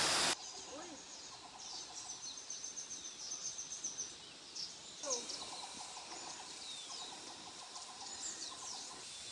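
Music cuts off just at the start, leaving faint outdoor ambience with wild animals giving rapid, rattling trilled calls in two long runs.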